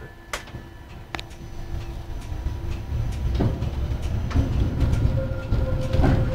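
Protram 205WrAs tram heard from inside the driver's cab as it runs through a track junction. A low running rumble builds as it gathers speed, and the wheels give several sharp clacks over the rail crossings.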